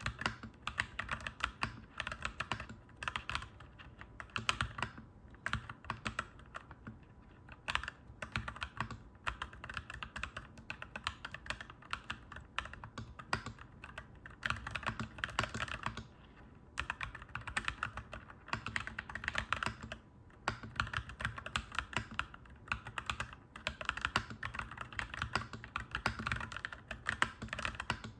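Fast typing on a clacky mechanical keyboard, a dense run of key clicks with short pauses between bursts.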